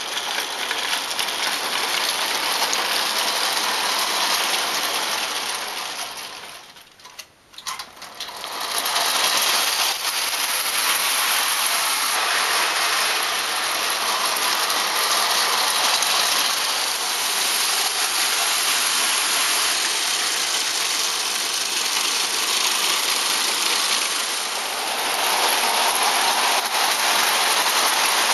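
Vintage clockwork tinplate O-gauge trains running on tinplate track: the steady whirring rattle of the wound-spring motors' gears and the metallic clatter of the wheels, dropping away briefly about seven seconds in.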